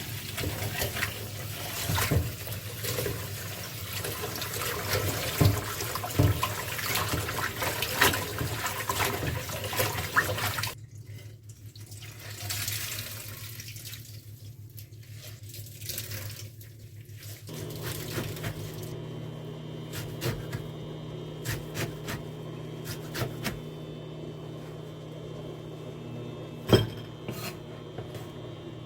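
Running water with scattered clicks and knocks. About eleven seconds in it cuts abruptly to a quieter sound, which from about eighteen seconds carries a low steady hum with occasional sharp clicks.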